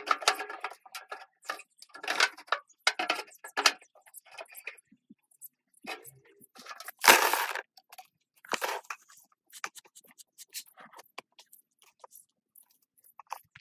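A pipe is pushed and worked down into a square sheet-metal tin, giving irregular scrapes, rustles and knocks against the tin. The loudest is a longer scrape with a knock about seven seconds in.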